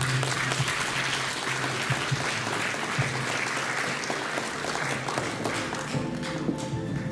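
Audience applauding, a dense patter of many hands clapping over background music; the clapping fades about six seconds in and the music carries on.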